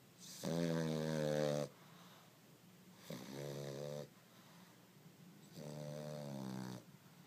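French bulldog snoring: three snores, each about a second long and roughly two and a half seconds apart, the first the loudest.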